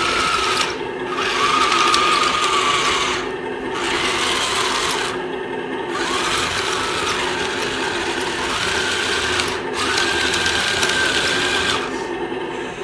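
Small electric drive motors and plastic gearboxes of a 1/35-scale remote-control tank whirring as it creeps along and turns. The motor noise stops briefly four times, and the whine shifts in pitch as the speed changes.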